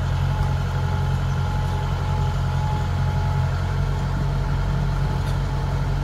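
Kubota DC-105X combine harvester's diesel engine running steadily as the tracked machine crawls through mud, a low even drone. A thin high whine sits over it for the first three seconds or so.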